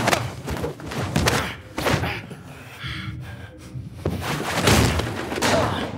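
Fight sound effects for a hand-to-hand brawl: punches and bodies slamming into walls and fixtures, a run of heavy thuds and slams, with the loudest about two-thirds of the way in.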